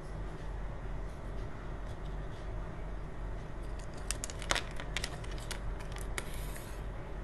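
Plastic toy pieces clicking and tapping as they are handled and set down on a tabletop, a quick run of sharp clicks in the second half with a brief rustle near the end, over a steady low hum.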